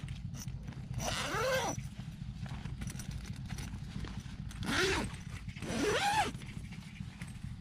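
An animal crying three times, about a second in and twice more around five and six seconds in, each call rising and then falling in pitch, over a steady low rumble.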